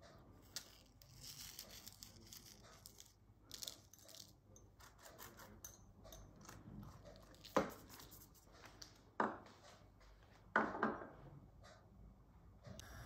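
Silicone pastry brush dabbing water onto proofed bread dough, then panko bread crumbs sprinkled by hand over the dough and parchment paper: soft rustling and pattering. Sharp knocks in the second half, about a second and a half apart, the last a quick double, are the loudest sounds.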